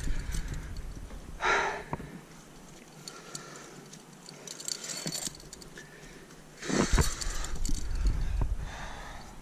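A rock climber's breathing, with a sharp breath about a second and a half in, and the rustle and light jangle of carabiners and quickdraws on the harness as he moves on the rock. Wind rumbles on the head-mounted camera's microphone at the start and again from about two-thirds of the way through.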